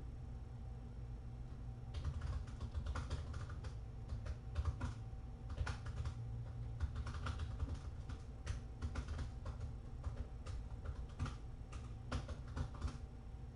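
Typing on a computer keyboard: irregular runs of quick key clicks, starting about two seconds in, over a steady low hum.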